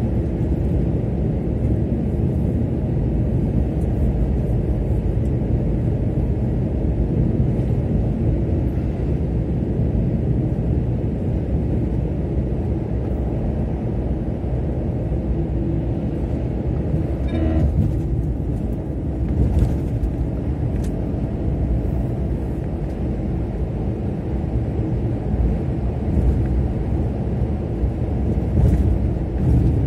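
Car driving at speed: a steady low rumble of engine and tyres on the road, with a short higher-pitched sound a little past halfway.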